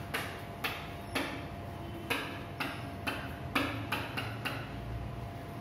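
Marker writing on a whiteboard: about a dozen short scratchy strokes and squeaks, one after another, as arrows and letters are drawn.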